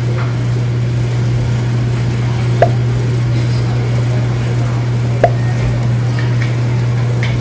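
Steady low machine hum, with a few short clicks over it.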